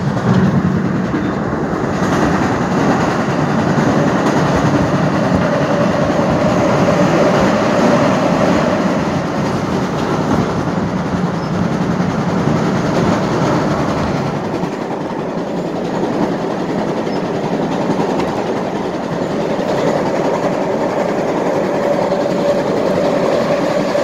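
Passenger train running along the track, heard from inside the car: a steady rumble of wheels on rails. A faint steady whine comes in for a few seconds, fades, and returns near the end.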